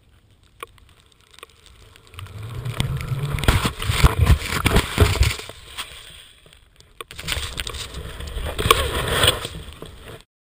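Snowboard riding through deep powder, with the rush of spraying snow and wind on the microphone. It comes in two surges, the first about two seconds in and the second a few seconds later, with a quieter moment between.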